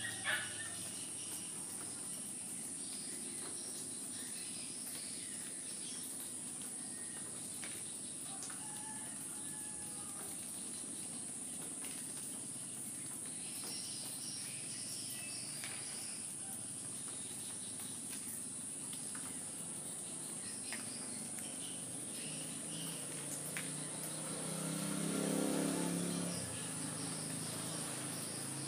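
Steady high-pitched chirring of insects with scattered bird chirps. About 25 seconds in, a louder low rumble swells and fades over a couple of seconds.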